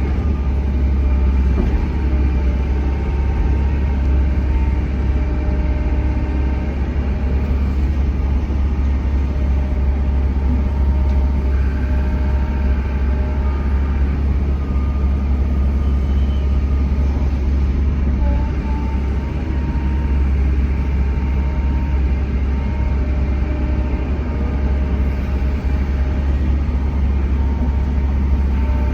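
Bobcat E145 excavator's diesel engine running steadily as the machine digs and loads, with faint whining tones from the hydraulics coming and going over the deep engine drone.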